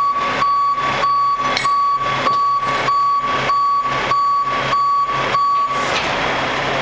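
A backup-alarm-style warning beeper sounding a steady electronic beep about every 0.6 s over the running noise of the truck and its hydraulics, as the dump arm of a recycle-tote dumping trailer lowers the bucket. The beeping stops about six seconds in, leaving the machinery running.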